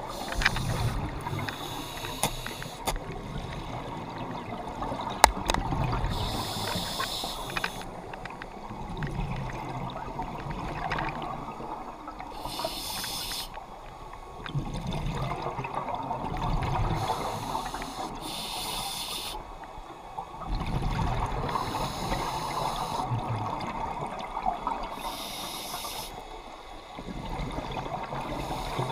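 Scuba diver breathing through a regulator underwater: a hiss on each inhale lasting about a second, then low bubbling on each exhale, a breath about every six seconds. One sharp click about five seconds in.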